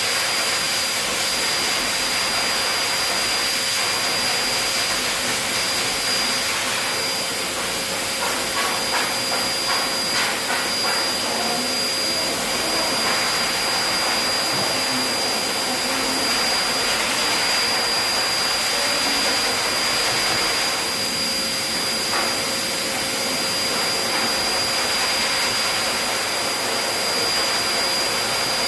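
High-velocity dog grooming dryer (force blaster) running steadily, a rush of air with a steady high whine, blowing the dead undercoat out of a dog's coat.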